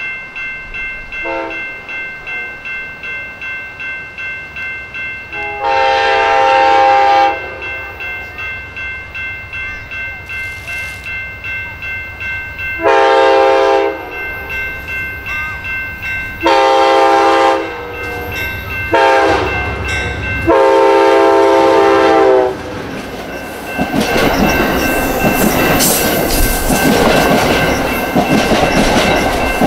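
Amtrak P42DC locomotive's Nathan K5LA five-chime horn sounding a series of blasts as it approaches a grade crossing: several long blasts, a short one, then a long one held over two seconds. A crossing bell rings steadily underneath. Near the end the train passes close by, with loud rushing wheel noise and clattering over the rail joints.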